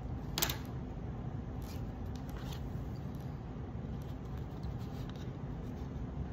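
Small cardboard box being handled: a short sharp knock about half a second in as it is taken up off the wooden table, then faint rubbing and scraping as the card sleeve slides along the box, over a steady low background rumble.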